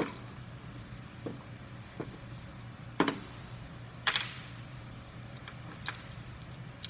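A few scattered knocks and clinks of steel vise-segment parts being handled and fitted together, the two loudest about three and four seconds in, over a low steady hum.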